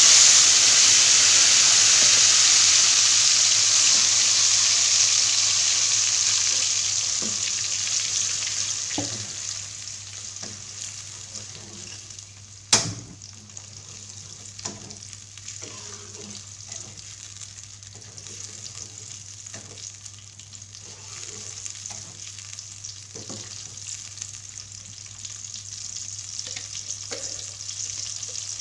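Blended dried-chili and onion paste hitting hot oil in a wok: a loud sizzle that dies down over the first ten seconds or so, then a quieter steady sizzle with the scraping of a spatula stirring against the wok. A single sharp knock sounds about twelve seconds in.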